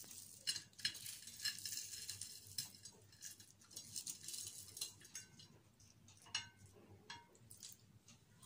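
Faint, scattered crackles and small clicks of crisp fried onion rings being picked up off a paper plate and handled.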